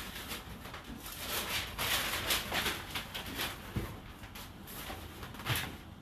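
Whirlpool WFO3P33DLXUK dishwasher in its rinse phase: water from the spray arms splashing and swishing inside the tub in uneven surges, with a few soft low thumps.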